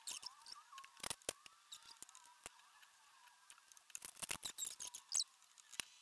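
Faint rustling and light ticks of hands folding a thin spring roll wrapper on a wooden chopping board. About four seconds in there is a quick run of clinks and scrapes as a metal spoon scoops filling from a pan.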